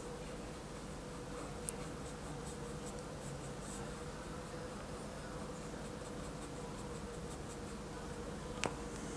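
Faint scratching of a fine brush working oil paint on the painting surface in small repeated strokes, over a steady faint hum, with one sharp click near the end.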